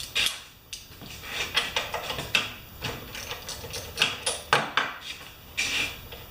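Socket ratchet clicking in irregular strokes as the spark plug is unscrewed from a Briggs & Stratton mower engine.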